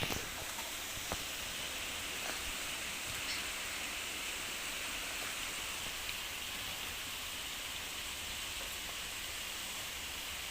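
Chicken pieces sizzling steadily as they fry in the spiced onion masala and oil in the cooking pot.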